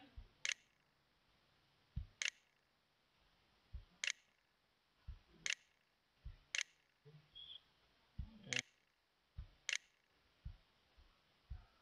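A computer mouse clicking out letters on an on-screen keyboard: a slow, faint series of clicks, about one every one to two seconds, some dull and some sharp.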